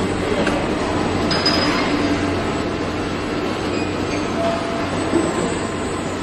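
Steady machinery noise of a car-body assembly line, with a low hum running under it.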